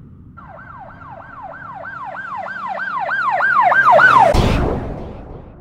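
A siren sound effect: a repeating falling wail, about three sweeps a second, swelling louder, that ends in a rush of noise and a deep boom about four and a half seconds in, then fades away.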